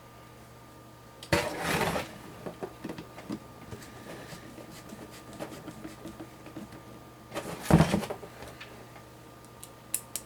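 Handling noise from fitting a case fan into a PC case: plastic and metal parts knocking and rattling, with two louder clatters, one about a second and a half in and one near eight seconds, small clicks in between, and two sharp clicks near the end.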